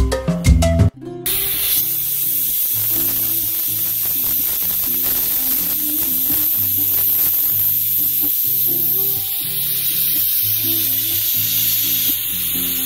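Stovetop pressure cooker on a gas flame letting off steam: a loud, steady hiss from the weight valve that starts about a second in and holds until the end. It signals that the cooker has reached full pressure, one of the two whistles that cook the chicken. Background music plays quietly underneath.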